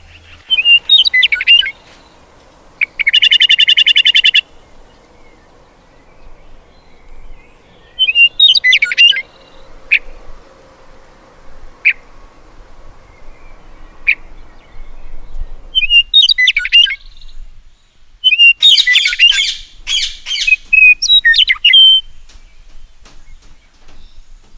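Parrots calling in short, high bursts. About three seconds in comes a rapid pulsed call lasting over a second, then a few single sharp chirps, and a dense run of calls near the end.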